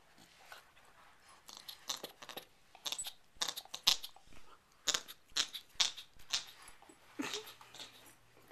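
Bernese Mountain Dog puppy chewing a bowling pin: an irregular run of sharp clicks and crunches of teeth on the pin, starting about a second and a half in and thinning out near the end.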